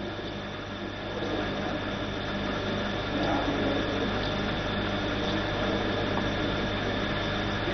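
Room tone of a hushed parliament chamber during a standing moment of silence: a steady hum and hiss with faint stirring, a little louder from about a second in.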